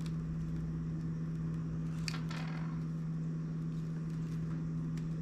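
A steady electrical hum, like a room appliance, with faint rustling clicks of monofilament fishing line being handled about two seconds in.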